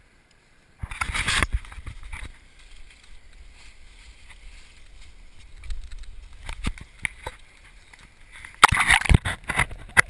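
Rustling and knocking of an action camera being handled and moved down to the riverbank, with a loud burst about a second in. Near the end, water sloshes and gurgles against the camera housing as it is dipped into the river.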